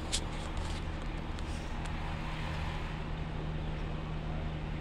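Vehicle engine idling with a steady low hum, with a few light clicks in the first second.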